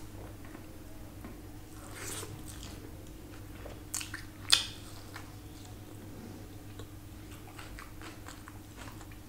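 Close-up mouth sounds of eating by hand: chewing rice biryani, with a few short sharp bites into a piece of chicken about four seconds in, the loudest just after. A faint steady hum runs underneath.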